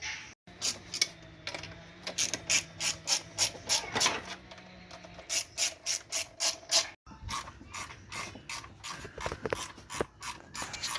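Hand ratchet wrench being worked back and forth, its pawl clicking in quick runs of about three to four clicks a second.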